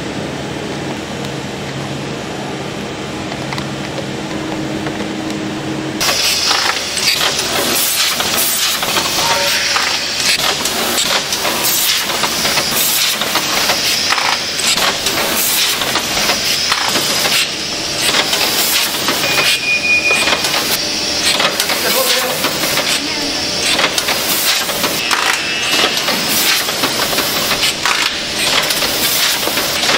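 Leepack RT-110 rotary pouch packaging machine running: a dense, fast clatter of its mechanism with a steady hiss. It comes in suddenly about six seconds in, after a steadier, lower hum.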